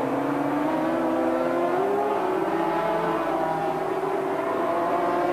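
Racing sidecar outfit's two-stroke engine running at high revs on the track, a steady engine note that rises slowly in pitch and then levels off.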